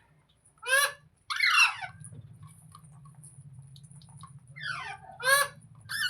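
Rose-ringed parakeet (green ringneck parrot) giving short, harsh squawks that fall in pitch, in two pairs with a pause of about three seconds between them. A low steady hum runs underneath from about a second in.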